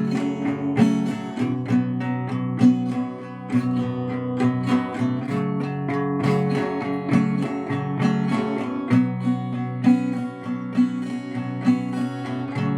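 Acoustic guitar strummed in a steady rhythm of repeated chords.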